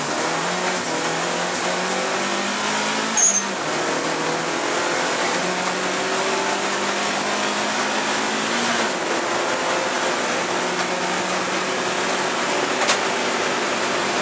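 Turbocharged Alfa Romeo 155 race car's engine heard from inside the cabin, pulling hard with rising pitch and shifting up twice, about three seconds in and near nine seconds in.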